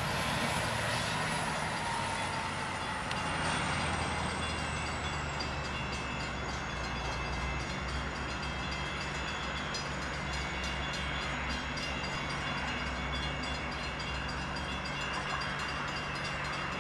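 Metra commuter train with an MPI MPXpress diesel locomotive running steadily as it draws away, the engine giving a low even hum under a high whine that slowly falls in pitch over the first several seconds.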